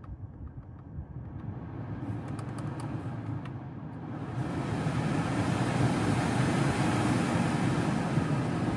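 BMW i3 cabin climate blower fan speeding up over about four seconds, then running steadily at high speed. A few light clicks sound while it rises.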